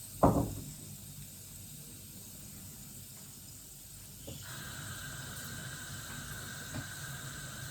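A pan or utensil clatters once just after the start. About four seconds in, a steady hiss begins: cooking oil starting to sizzle as it heats in the pan.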